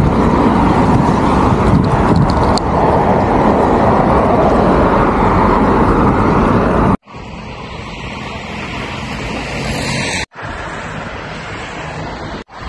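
Street traffic and wind noise heard while riding a bicycle through town: a loud, steady rush for about seven seconds, then it cuts off suddenly and gives way to quieter traffic noise with a low hum, broken twice more by abrupt cuts.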